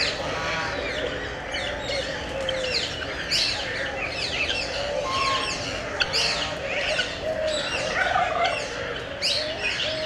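Many small birds chirping and twittering in a dense, near-continuous stream of short, quick, high calls.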